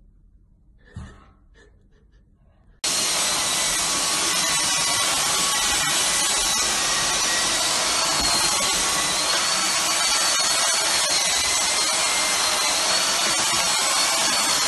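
Cordless stick vacuum cleaner running steadily with a high motor whine, its head being passed over a dog's fur. The sound starts suddenly about three seconds in, after a quiet stretch with one faint knock.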